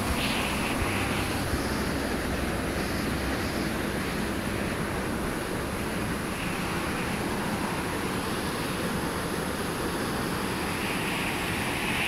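A waterfall and mountain stream rushing steadily over rock into a pool.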